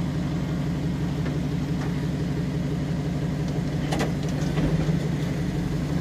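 Dodge pickup truck's engine idling steadily, with a short click about four seconds in.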